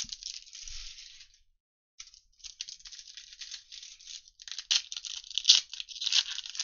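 Foil wrapper of a Panini trading-card pack torn open and crinkled in the hands. A tear at the start and a pause of about half a second are followed by crackling foil, with a few louder crinkles toward the end.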